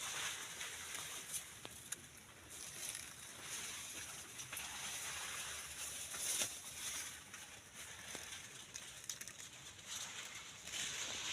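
Maize leaves and stalks rustling, with scattered small crackles and a couple of louder swells of rustle.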